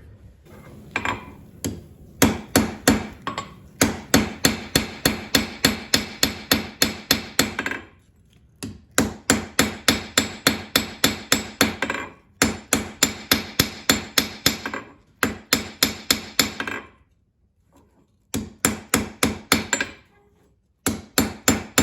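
Blacksmith's hammer striking the hot coil-spring steel tip of a slot punch on an anvil to forge it flatter, in fast runs of about three to four blows a second with short pauses between runs.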